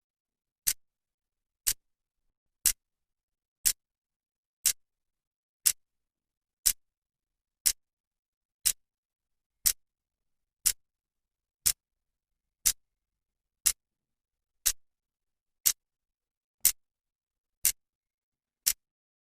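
A clock's second hand ticking once a second: a sharp, dry click on each step, with silence between the ticks.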